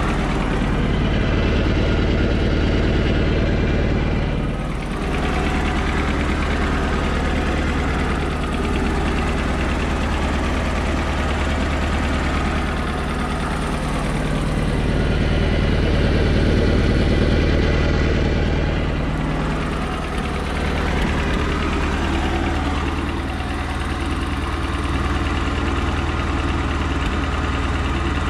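Mercruiser 140 sterndrive engine, a 3.0-litre four-cylinder, running steadily with no revving, its loudness dipping slightly a few times.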